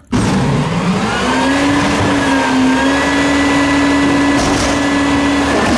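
A small motor spins up quickly and then runs at a steady pitch under a loud hissing rush.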